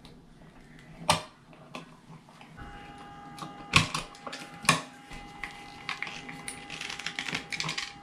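Small metallic clicks and taps of needle-nose pliers working copper wire ends against a wall outlet's screw terminals. Two sharper clicks come about four and five seconds in, and lighter ticks follow near the end.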